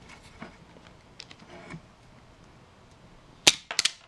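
Automatic self-adjusting wire stripper (JX-1301) stripping the outer jacket off a two-core cable: faint clicks as the jaws are set, then a sharp snap about three and a half seconds in and two quicker clicks as the mechanism releases and pulls the jacket off.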